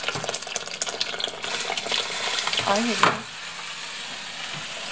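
Hot water from a kettle pouring into an enamel pot of onion, carrot, cabbage and pork frying in oil, hissing and crackling as it hits the hot fat. The pouring stops about three seconds in, leaving a quieter sizzle.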